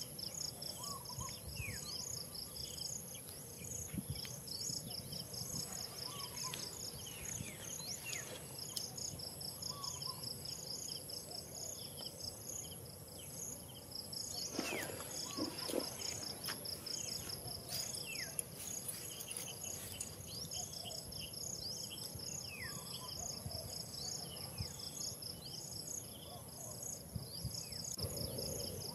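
Insects chirping: a rapid, rhythmic high pulsing trill that breaks off briefly a few times, over a steady very high buzz, with scattered short falling chirps. A brief louder sound about halfway through.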